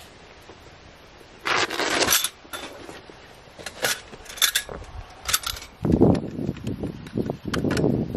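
Metal grill parts clinking and rattling as they are handled and unpacked: a loud metallic rattle about a second and a half in, a few sharp clinks, then duller knocks and rustling.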